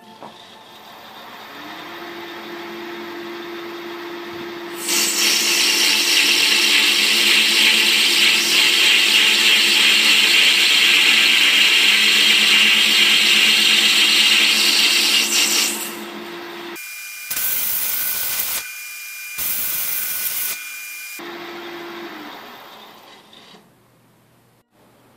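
Metal lathe motor spinning up and running with a steady hum, joined by a loud steady hiss for about eleven seconds as the workpiece is turned, then two shorter hissing spells with a faint whistle before the lathe runs down and stops near the end.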